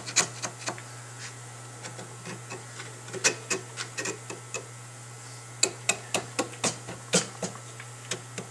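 Small metal pick scraping and clicking against the gasket seat of an AC dual-action fuel pump, digging out the old fuel-bowl gasket. It comes in three short bursts of sharp scratches, with pauses between.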